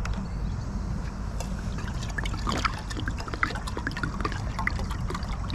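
Water pouring from a plastic jerry can into a small camping kettle, a steady trickle broken by many small gurgles as it fills.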